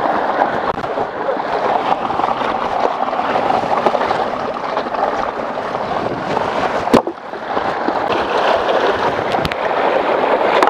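Mountain stream water rushing and gurgling close by, a steady churning sound. About seven seconds in a single sharp knock cuts through it, with a fainter click a couple of seconds later.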